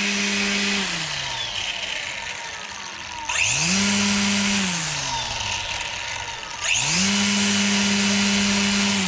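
DeWalt 20V MAX DCST922 brushless cordless string trimmer on high speed, triggered in three short runs: each time the motor and spinning line wind up to a steady whine with a whooshing hiss, hold, then fall away as the trigger is let go and the head coasts down. The first run is let go about a second in, the second comes about three seconds in, and the third starts about seven seconds in and is released near the end.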